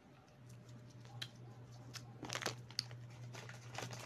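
Plastic snack-cake wrapper crinkling and rustling as it is handled, in clusters of crackles that are busiest in the second half, over a low steady hum.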